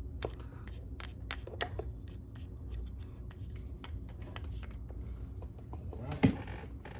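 Light handling noise from cleaning a rifle scope lens with a lens pen: scattered small clicks and soft rubbing, with one louder knock about six seconds in.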